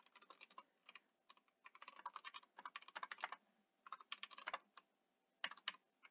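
Faint computer keyboard typing: quick runs of key clicks with brief pauses between them.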